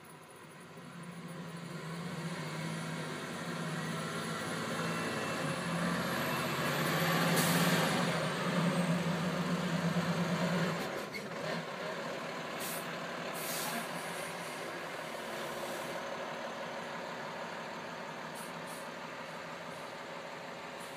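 International sand truck's diesel engine working hard as it struggles for grip on an icy hill, its low note building up to about ten seconds in, then easing off to a steadier run.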